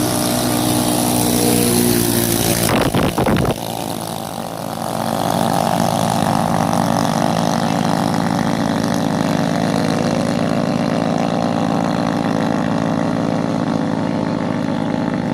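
Small-engine racing boats (7 hp class) running steadily at speed. About three seconds in there is a short rough burst, and the engine sound then comes back with a different pitch.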